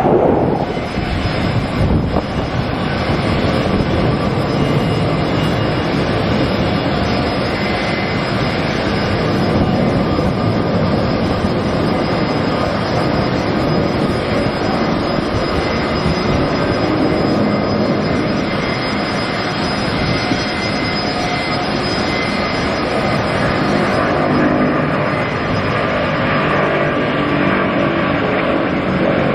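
Airbus A380's four turbofan engines running at takeoff thrust, a steady loud jet noise with a thin whine held over it.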